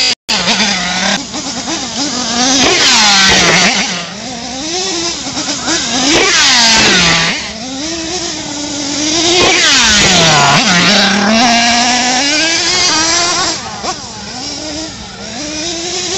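Small nitro engine of an RC monster truck revving up and down again and again. Its high-pitched note rises and falls over several throttle bursts.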